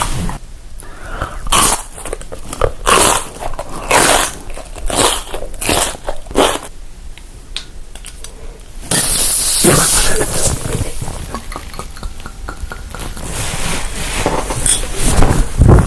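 Close-miked mukbang eating sounds: a series of bites and chewing, with a longer noisy stretch about nine seconds in.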